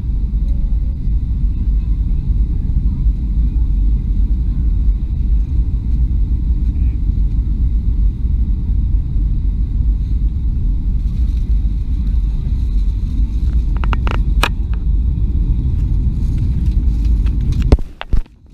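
Steady low rumble of a jet airliner cabin in flight on descent, engines and airflow heard from a window seat. Near the end comes a sharp knock, then the sound drops away abruptly.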